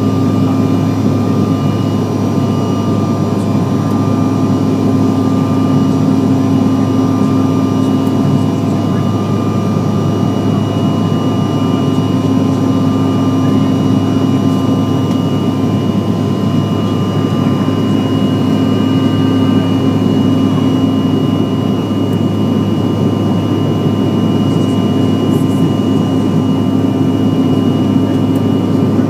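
Inside the cabin of a CRJ-700 climbing out after takeoff: the steady roar of its rear-mounted General Electric CF34 turbofans and rushing air, with a low hum and a thin high whine held steady through it.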